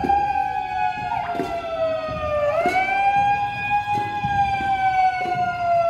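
Siren wailing: its pitch climbs quickly, then slowly sags, and it swells back up about a second in and again after about two and a half seconds. A few sharp knocks sound over it.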